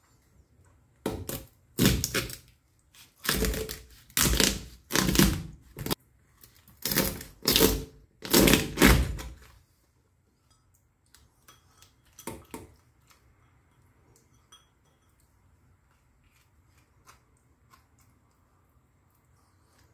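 A chef's knife splitting a Boston lobster lengthwise on a plastic cutting board: about eight loud knocking, cracking strokes as the blade is forced through the shell and strikes the board, over roughly the first ten seconds. After that only faint small clicks.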